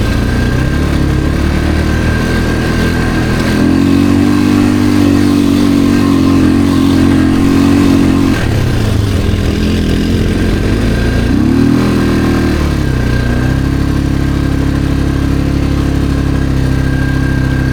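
ATV engine running under way with throttle changes: the engine note climbs about three and a half seconds in and holds, drops off around eight seconds, then picks up again near the middle and settles into a steady run.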